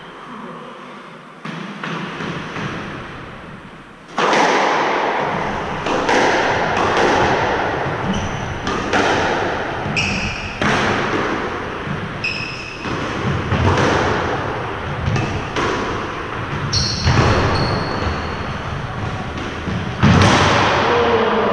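Squash rally: the ball struck by racquets and smacking off the court walls about once a second, each hit echoing around the enclosed court. Short squeaks of court shoes on the wooden floor come in between, a few of them in the middle part.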